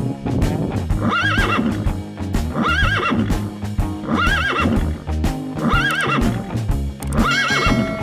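Background music with a steady beat. A wavering high figure repeats the same way five times, about every one and a half seconds.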